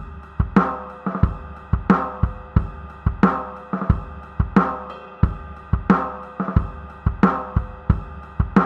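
Intro music: a drum kit playing a steady beat, with hits about every two-thirds of a second, under sustained instrumental chords.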